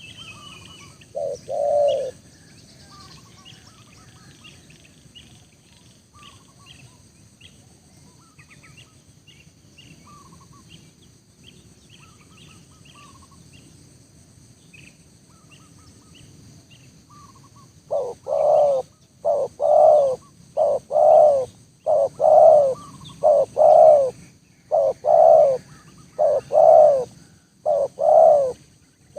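Spotted dove (tekukur) cooing: a single short coo about a second in, then from about 18 s a long run of repeated coos, about one to one and a half a second. Faint chirps of small birds are heard in the quiet stretch between.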